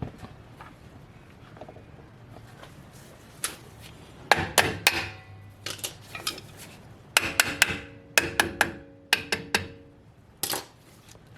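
Sharp metallic clinks and knocks of tools and steel drum-brake parts being handled and tapped during brake shoe assembly. The clinks come in clusters from about four seconds in, and a few ring briefly.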